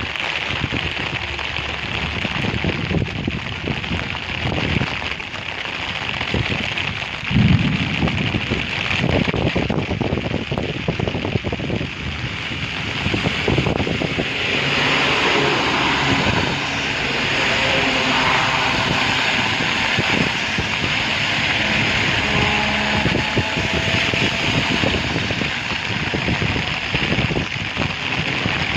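Strong wind gusting against the microphone while rain falls, with low rumbling buffets in the first half; the rain's hiss grows denser about halfway through.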